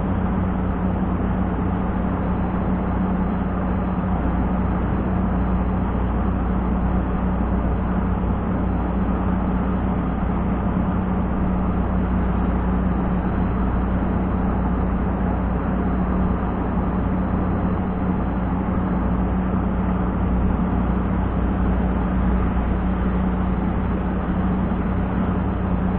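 Wind buffeting the microphone as a steady rumble, with a constant low hum underneath.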